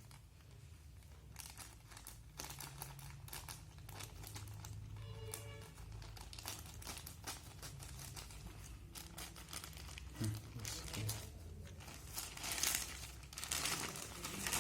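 Plastic packaging crinkling and tearing in irregular bursts as a sealed phone box is unwrapped, with music playing underneath.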